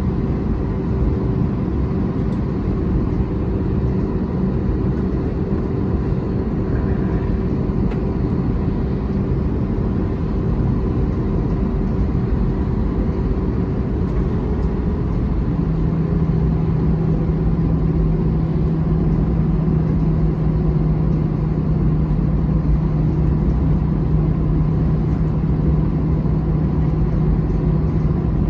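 Cabin noise of an Airbus A321-211 taxiing: a steady rumble from its CFM56 engines at taxi power with a constant hum. About halfway through, the hum shifts to a lower, stronger tone.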